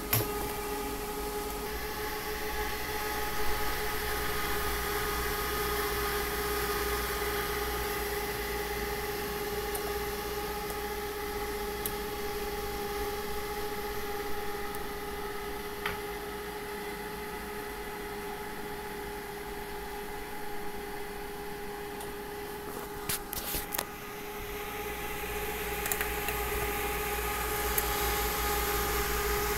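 A homemade chicken-egg incubator running: a steady electric motor hum with two clear steady tones, from its fan and egg-turning roller motors. A short cluster of faint clicks comes near the end.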